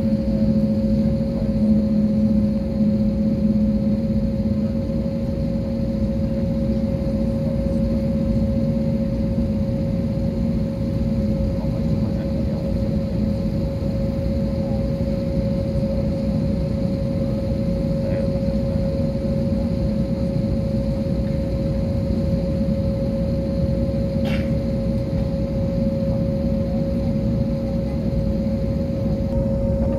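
Jet airliner engines heard from inside the passenger cabin: a steady drone, with two held tones over a low rumble.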